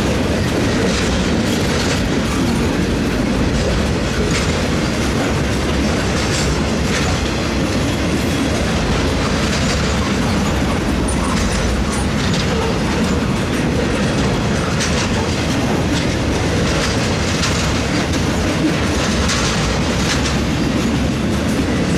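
Freight train flatcars loaded with steel pipe rolling past: a steady rumble of wheels on rail, with occasional clicks as the wheels pass over the track.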